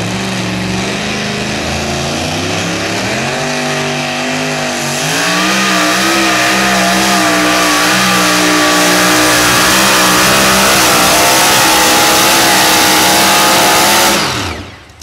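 Super modified two-wheel-drive pulling tractor's engine at full throttle under load while pulling the sled. The revs climb about four to five seconds in and hold high and loud, then fall away sharply near the end.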